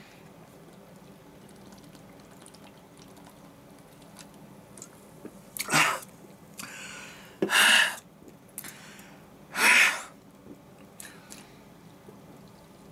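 A man's loud breathy exhalations or gasps after gulping from a can of fizzy strong chu-hi: three short bursts about two seconds apart, starting about six seconds in.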